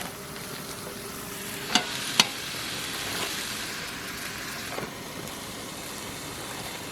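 Food sizzling in a pan: a steady frying hiss, with two sharp clicks about two seconds in.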